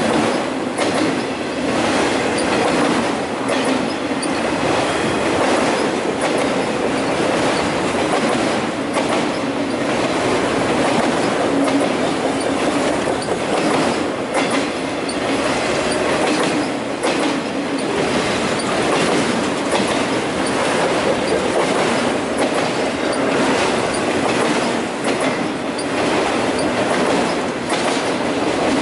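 Enclosed autorack freight cars of a CN train rolling past close by: a steady, loud rumble of steel wheels on rail, with irregular clacks as the wheels cross rail joints.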